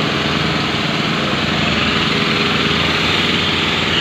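Small engines of portable fire pumps running steadily under test.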